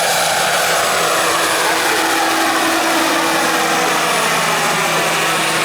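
Model turbine helicopter, a 1/4-scale AS350 Ecureuil with a Jakadofsky 5000 Pro turbine, running steadily: turbine whine over rotor noise, the whine sliding slowly down in pitch.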